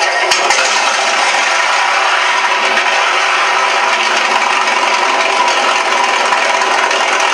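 Recorded Rolls-Royce Merlin V-12 engine sound of a P-51 Mustang, played at throttle-up by a Shockwave sound module through two 3-inch Aerosound speakers. It runs loud and steady, with little deep bass.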